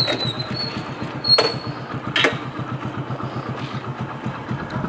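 Motorcycle engine idling with steady, even firing pulses, with two sharp clicks about a second and a half and two seconds in.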